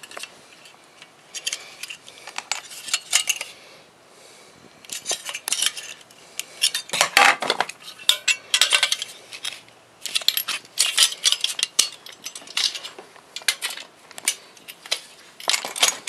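Pliers and the metal parts of a microwave magnetron clinking and scraping against a metal tray as its aluminum cooling fins are worked off: irregular clattering, with louder bursts of scraping about seven and ten seconds in.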